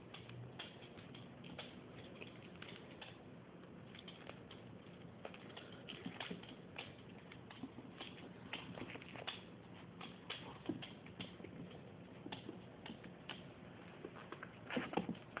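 Maltese puppies' claws and paws clicking and pattering on a hardwood floor as they scramble about: light, irregular taps, bunching into a louder flurry near the end, over a faint steady hum.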